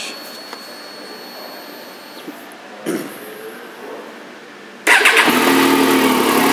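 2008 Triumph Street Triple's 675cc three-cylinder engine, stock exhaust, starting suddenly about five seconds in and settling at once into a steady idle. Before it starts there is only faint handling noise.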